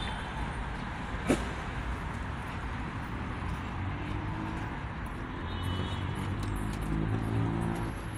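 Road traffic passing on a busy street: a steady rumble of car and minibus engines and tyres, with a heavier engine's low drone growing louder over the second half. A short sharp chirp sounds about a second in.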